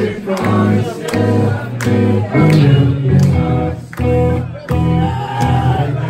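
Math-rock band playing live: interlocking electric guitars, bass guitar and drums, with a voice singing near the end.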